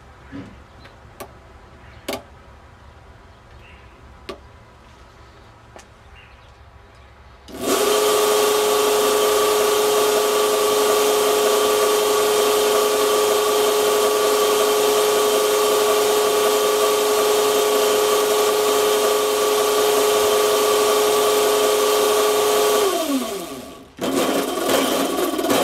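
A few light clicks as the elastic ROLL-RING is fitted by hand between the chain strands. Then a motor-driven belt drive with the ring tensioner starts and runs at speed, a loud steady whine with one strong tone. Its pitch falls as the drive slows to a stop, and another running drive starts just after.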